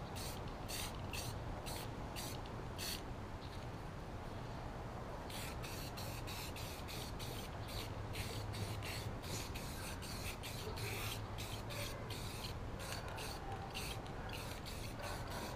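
Aerosol spray-paint can hissing in many short bursts, about two a second.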